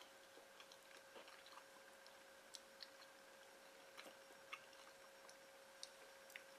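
Near silence: a faint steady hum with a scattering of small, faint clicks and taps at irregular moments.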